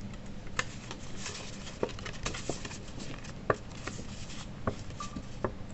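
Cut cardstock being pinched and folded by hand along its score lines: soft paper rustling with scattered small clicks and crackles.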